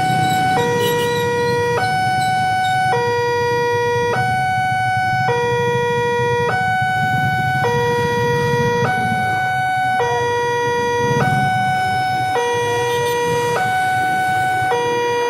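Railway level-crossing warning siren sounding a steady two-tone alternation, low and high note switching about every 1.2 seconds, warning road users that a train is approaching and the crossing is closing.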